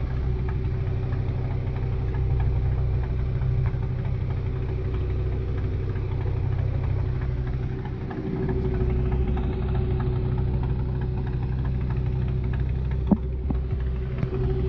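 Engine aboard a wooden fishing boat running steadily, a low drone with a constant hum; it dips briefly about eight seconds in and picks up again. A single sharp knock near the end.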